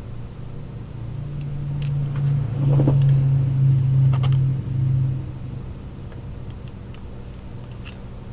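A low rumble that swells from about a second in and fades again after about five seconds, with a few light clicks.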